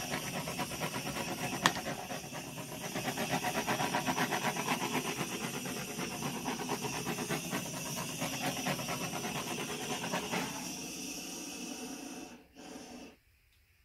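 Handheld butane torch flame hissing with a fast flutter as it is played over wet acrylic paint to pop air bubbles. A single sharp click comes under two seconds in, and the flame sound weakens and dies away near the end.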